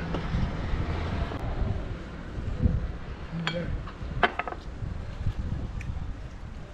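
A few light clinks of glasses and dishes being handled at a table, a cluster of them about four seconds in, over a steady low rumble.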